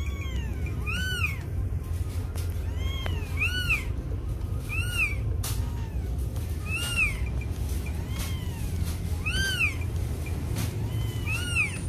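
Newborn kitten mewing: thin, high cries that rise and fall in pitch, repeated every one to two seconds over a steady low rumble. A newborn crying like this is the sign it is breathing after being revived by rubbing.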